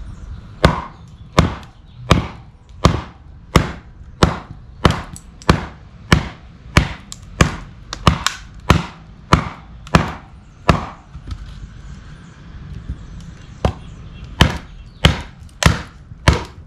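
Heavy strikes of a Dark Timber Devil's Horn camp knife into a big log, splitting it: a steady run of about fifteen sharp wooden chops, roughly three every two seconds, then a short pause and about six more strikes near the end.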